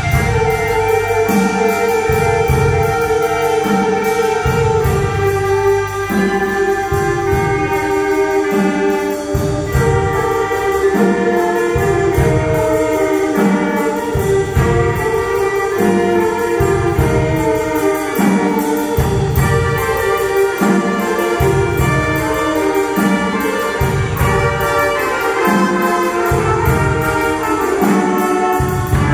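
School concert band playing a carol arrangement: clarinets, saxophones and brass holding chords and moving lines over a steady beat from the drum kit.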